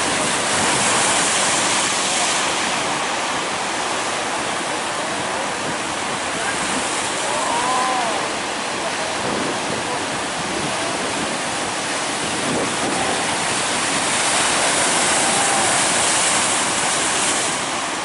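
Heavy surf: breaking waves rushing and washing in a steady, loud roar. Faint distant voices call out a few times, most clearly about halfway through.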